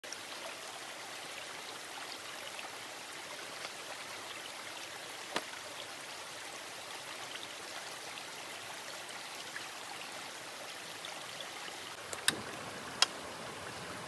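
Steady hiss of running water, with a sharp click about five seconds in and two louder clicks near the end.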